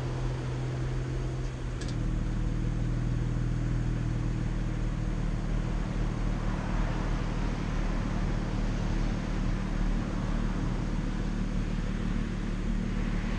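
2012 BMW 335i's 3.0-litre turbocharged inline-six idling steadily through its stock exhaust after a cold start. About two seconds in the exhaust note shifts and gets a little louder, with a faint click, then holds steady.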